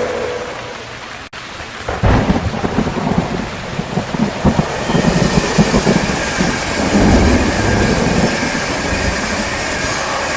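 Steady rain with a long roll of thunder that starts about two seconds in and rumbles on for several seconds, after a brief dip and dropout in the sound.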